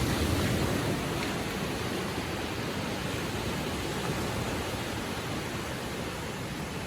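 Gentle ocean waves breaking and washing up the shore: a surge of surf right at the start that eases into a steady, slowly fading wash.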